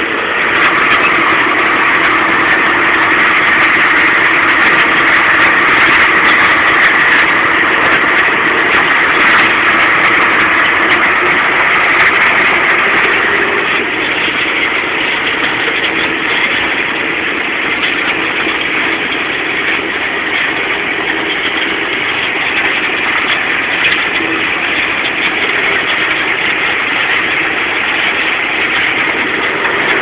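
John Deere 6930 tractor's six-cylinder diesel engine running steadily under ploughing load, heard from inside the cab. It gets a little quieter about halfway through.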